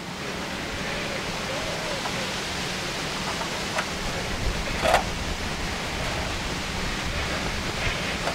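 Safety matches struck on the side of a matchbox to light a disposable barbecue, a few short scratches with the loudest about five seconds in, over a steady rushing noise that sounds like wind on the microphone.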